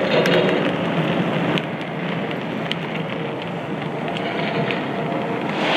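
O-scale three-rail model freight cars, refrigerator cars and a caboose, rolling past on metal track: a steady rolling rumble of the wheels with scattered light clicks, easing off a little about a second and a half in.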